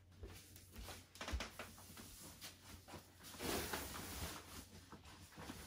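PVC fitted bed sheet crinkling and rustling in irregular crackles as it is pulled and smoothed over a mattress by hand, loudest a little past halfway.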